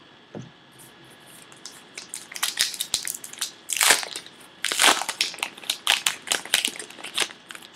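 A pack of baseball cards being torn open: its shiny wrapper crackling and crinkling in quick, sharp bursts, loudest about halfway through.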